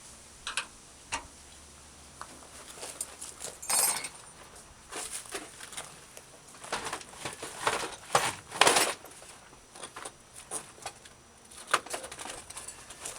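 Hand tools being handled: metal clinks, rattles and short scrapes at irregular intervals, with the loudest clatter about nine seconds in.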